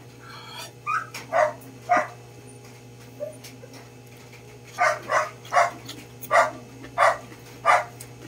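A dog barking in short, sharp barks: three about a second in, then a faster run of six from about five seconds in.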